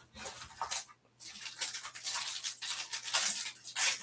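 Foil wrapper of a Topps Stadium Club Chrome trading card pack crinkling and tearing as the pack is pulled from the box and ripped open: a short rustle, a brief pause about a second in, then a longer stretch of loud crinkling.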